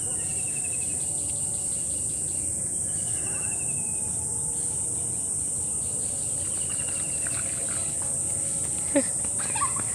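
Steady high-pitched chorus of night insects, with a few shorter trills rising over it every few seconds.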